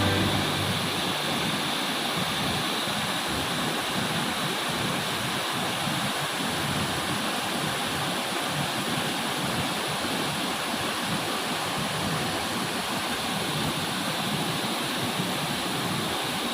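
Waterfall water rushing and splashing in a steady, even roar.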